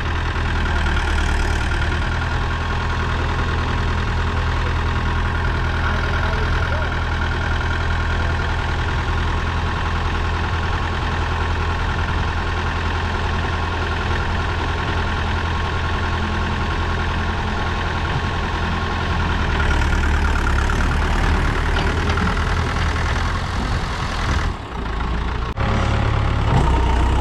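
Mahindra tractor's diesel engine running steadily while it raises its hydraulic tipping trailer to dump a load of soil. It grows a little louder about two-thirds of the way in, with a brief break near the end.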